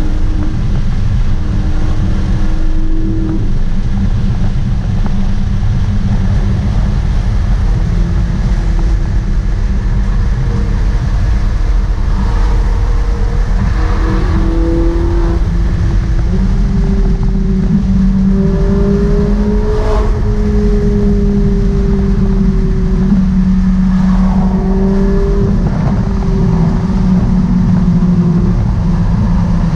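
Ferrari 458 Italia's V8 engine cruising at highway speed, heard from inside the cabin along with steady road noise. The engine note drifts up and down in pitch a few times as the throttle changes.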